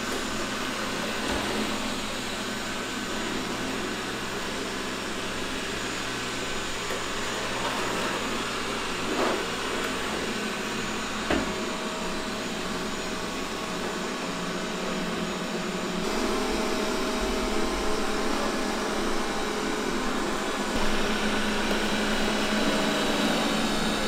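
Xiaomi Mijia robot vacuum cleaners running on a rug: a steady whir of the suction fan and brushes, with a couple of brief knocks about nine and eleven seconds in.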